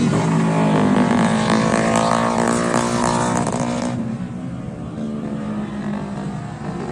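Motorcycle engine running hard with wind rushing over the microphone; about four seconds in, the wind noise falls away and the engine gets quieter.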